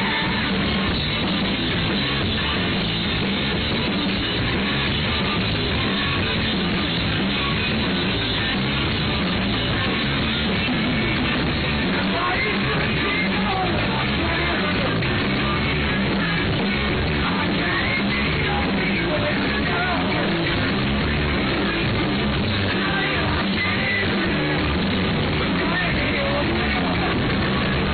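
Live rock band playing a loud song with singing and yelled vocals.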